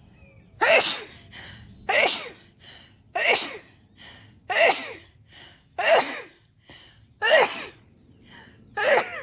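A woman in a sneezing fit: seven sneezes in quick succession, a little over a second apart, with a short gasping in-breath between each.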